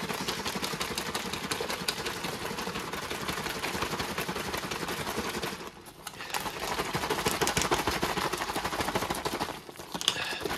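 Plastic ration pouch crinkling and rustling as it is handled and folded shut over its zip seal, a dense run of small crackles with two brief pauses.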